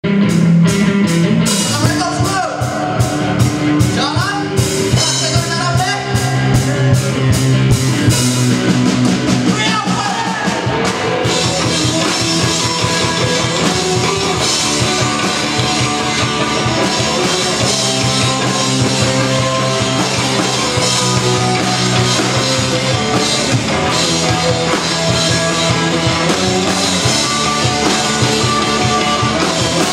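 Live rock band playing loudly: electric guitars, bass guitar and drum kit. The sound grows fuller and steadier about eleven seconds in.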